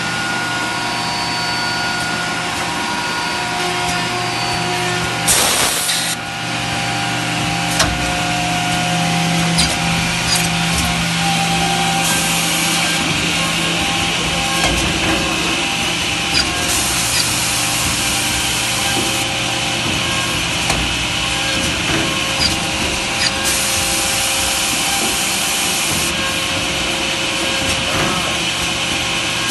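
Automatic edge banding machine running: a steady motor hum with several tones and light clicks, and four stretches of a higher hiss, one to three seconds long, as its cutting and trimming units work.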